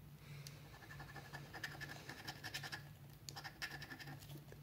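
Scratch-off lottery ticket being scratched, the coating scraped off in rapid short strokes in two spells with a brief pause about three seconds in.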